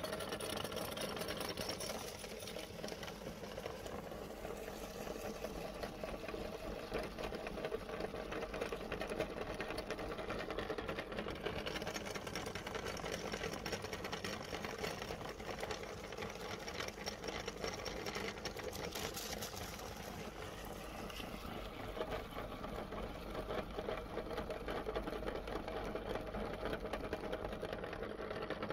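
Cast-iron meat grinder with a large flywheel running steadily with a fast mechanical clatter as it grinds ice cream cones fed into its hopper.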